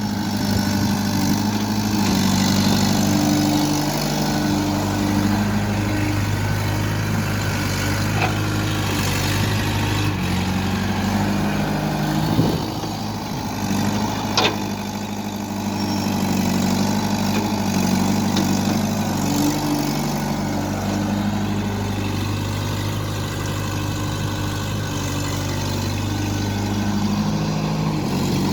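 Heavy diesel machinery engine running, its speed rising and falling several times as the load changes, with a couple of sharp knocks near the middle.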